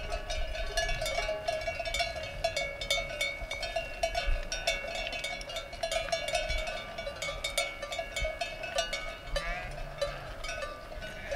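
Many sheep bells clanking and ringing at once, each at its own pitch, as a large flock of sheep moves along.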